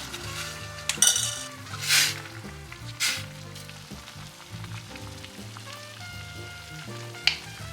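Food frying and sizzling in a pan while being stirred, with a few short, louder scrapes: three in the first few seconds and one near the end.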